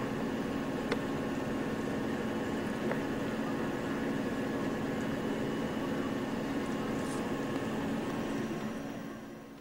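Steady low hum with a faint hiss and a few faint clicks, fading out near the end.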